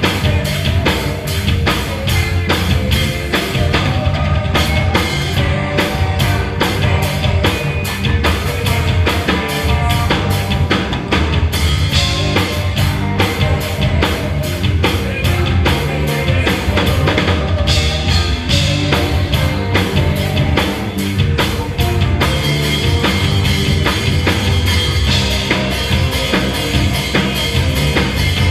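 Live band playing rock-style music: a drum kit keeps a steady beat under electric guitars, bass guitar and keyboard.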